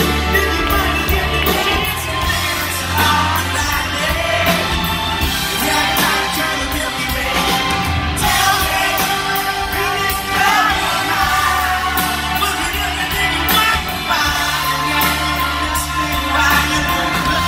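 Live pop-rock band playing through the PA: a male lead vocalist singing into a microphone over drums and bass guitar, with the reverberation of a large hall.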